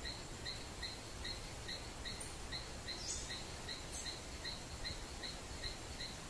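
Faint outdoor ambience: a steady hiss with a small chirp repeated evenly about two and a half times a second, and a brief higher sound about three seconds in.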